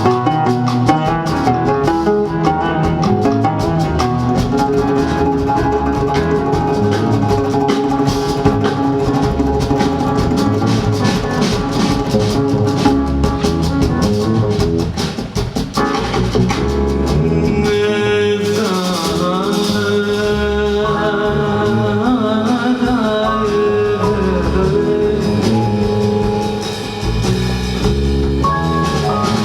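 Music with plucked strings and drums, and some singing; the music breaks off briefly about halfway through and changes character.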